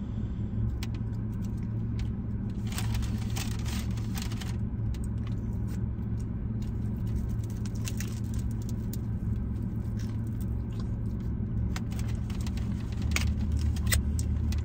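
Steady low hum with rustling and clicking, likely from takeout food being handled. The rustling comes in a burst about three to four and a half seconds in and again near the end.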